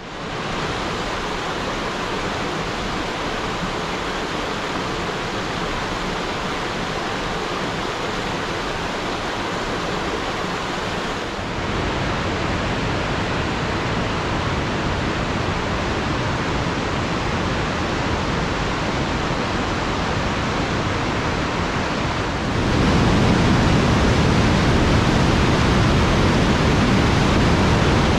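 Rushing water of a mountain creek pouring through a narrow rock gorge: a steady roar that steps up in loudness twice, about a third of the way in and again near the end, where it gains a deeper rumble.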